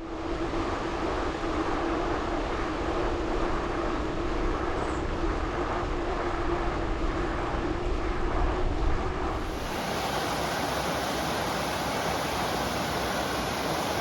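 Steady rushing noise from riding a gravel bike: wind on the chest-mounted camera's microphone mixed with tyre noise. A steady hum runs with it until about nine seconds in, where the sound changes abruptly.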